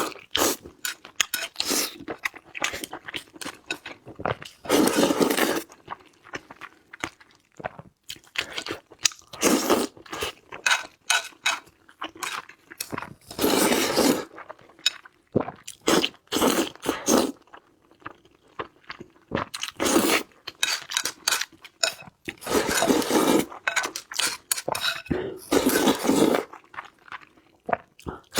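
A person chewing and crunching food: a steady run of small wet clicks, broken every few seconds by a louder crunching bite lasting about a second.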